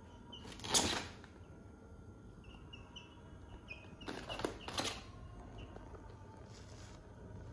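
Young chickens peeping, short falling peeps repeating every so often, with brief bursts of rustling noise about a second in and twice between four and five seconds in.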